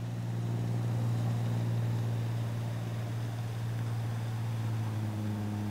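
A machine's steady low hum with a strong deep tone and fainter overtones, swelling slightly then settling.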